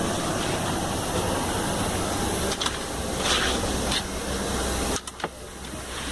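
Steady air hiss and low hum of a parked airliner's cabin ventilation. It drops away sharply about five seconds in, with a single click, then returns.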